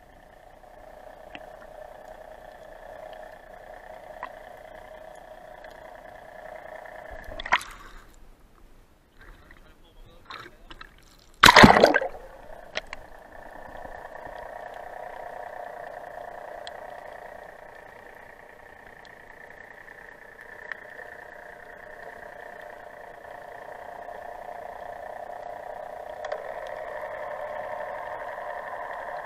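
Muffled underwater recording through a camera's waterproof housing: a steady dull drone, with a short sharp knock about seven and a half seconds in and a much louder knock around eleven to twelve seconds.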